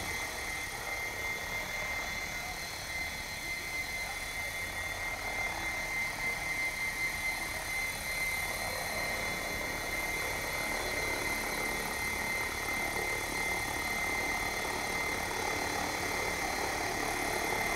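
Assault 700 electric RC helicopter in steady flight at a low head speed of about 1100 RPM on 6 cells: an even rotor drone with a steady high whine, the head speed holding without sagging.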